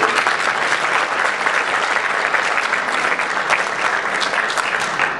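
Audience applauding at the end of a recited poem: many hands clapping in a dense, even patter.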